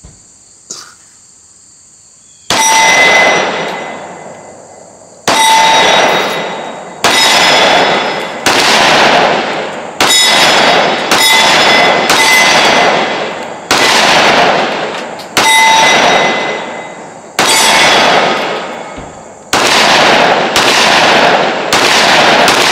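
Smith & Wesson M&P 10mm pistol firing about fourteen single shots at an unhurried pace, one every one to two seconds, each echoing off the range, several followed by the ring of a hit steel plate target.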